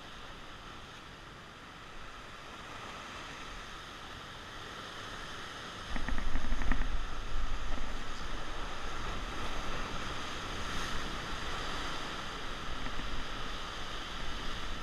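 Ocean surf breaking and washing around shoreline rocks, a steady rush of water. About six seconds in it suddenly grows louder with a heavy low rumble and stays louder after that.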